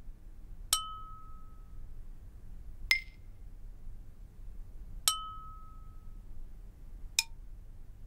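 Four bright struck tones, evenly spaced about two seconds apart, each a sharp strike followed by a short ringing note. The first and third ring at the same pitch, the second is higher, and the last is little more than a click.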